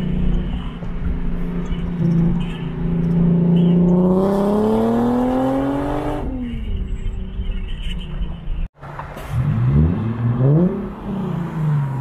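Infiniti G37 sedan's 3.7-litre V6 exhaust, run through ISR test pipes and a custom single-exit muffler, heard from a following car. It runs steadily, then rises in pitch as it accelerates for about two seconds and falls away. After a brief break it is revved about four times in quick succession, each rev rising and falling.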